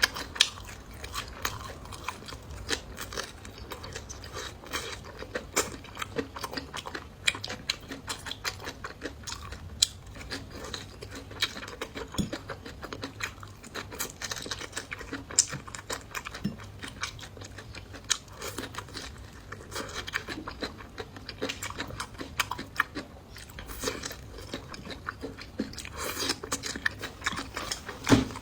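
A person chewing and biting food close to the microphone, with many irregular sharp crunches and clicks of eating.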